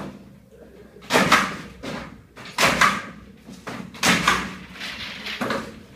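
Hand-operated underfloor-heating staple tacker being pressed down to drive clips over PEX heating pipe into the insulation board, four sharp clacking strokes about a second and a half apart.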